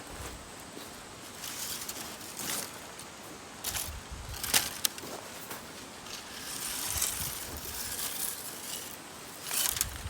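Irregular rustling, scraping and sharp clicks of gear being handled, over a steady outdoor hiss.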